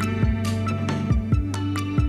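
Background music: an electronic track with sustained synth chords, a bass line and a steady drum beat.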